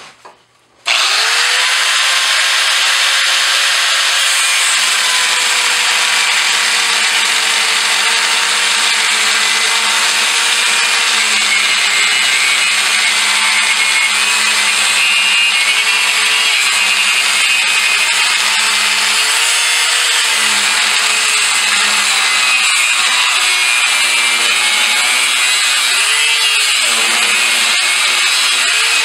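Electric right angle grinder starting up about a second in and cutting through a steel part clamped in a vise. It runs steadily loud, and its motor pitch sags and recovers several times as the wheel bites into the metal.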